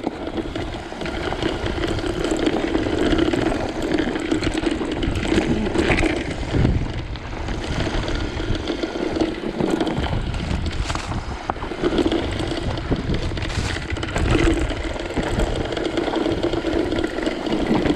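Electric bike ridden down a rough forest trail: a steady motor hum under tyre rumble, with rattles and knocks from the bumpy ground.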